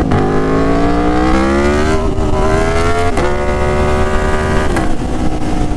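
Aprilia Tuono Factory motorcycle engine through an SC Project S1 slip-on exhaust, accelerating hard: the pitch climbs, drops with quick upshifts about two and three seconds in, climbs again, then falls away as the throttle closes near the end. Very loud.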